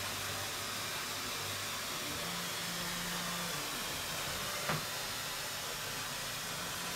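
Steady hissing noise with a faint low hum, and one short click about two-thirds of the way through.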